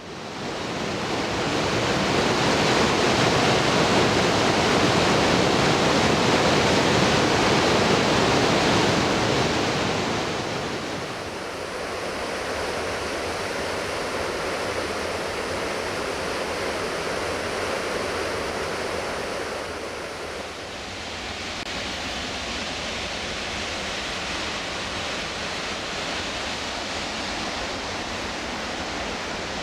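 Rushing water of a waterfall on the McKenzie River, a steady heavy rush. It fades in at the start, is loudest for the first ten seconds, then grows softer.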